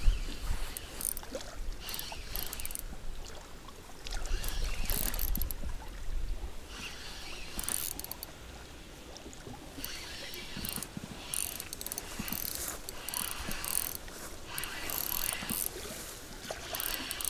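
Spinning reel cranked in stretches as a lure is retrieved, its gears giving a fast, fine ticking whirr. A low rumble comes in for a couple of seconds about four seconds in.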